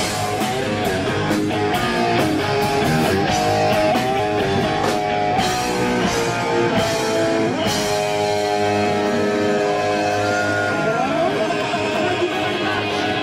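Live hard rock band playing: electric guitar with sliding notes over drums.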